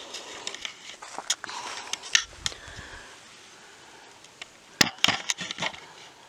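Footsteps on a hiking trail: irregular crunches and sharp cracks underfoot, with a quick cluster of the loudest cracks about five seconds in.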